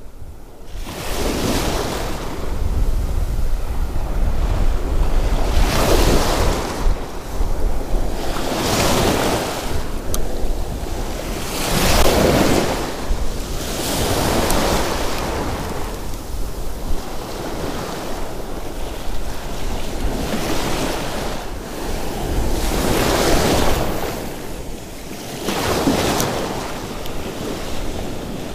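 Small waves breaking and washing in the surf close by, swelling and falling every few seconds, with wind rumbling steadily on the microphone.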